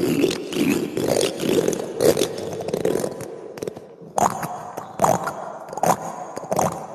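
Metal teaspoon scraped across cactus thorns in a run of repeated strokes, about two a second. About four seconds in, the strokes turn sharper and more separate, with a faint metallic ring.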